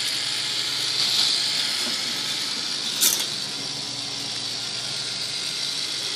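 Toy K'nex roller coaster running: its motorized gearbox turns with a steady mechanical whir and rattle. A single sharp click about three seconds in.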